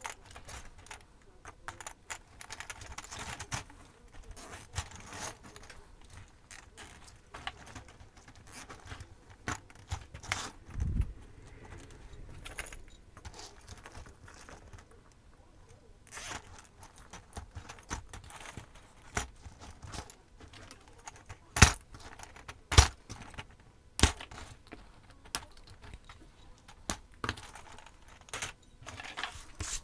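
Small Christmas ball ornaments clicking and rattling against each other and a white wire star frame as they are pushed into it by hand, with a few louder sharp knocks about two-thirds of the way through.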